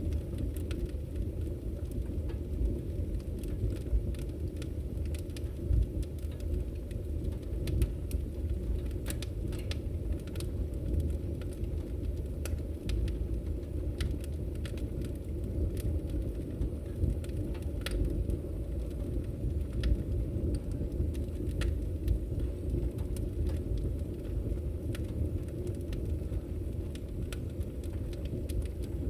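Fireplace fire crackling: a steady low rumble of flames with frequent, irregular sharp crackles and pops.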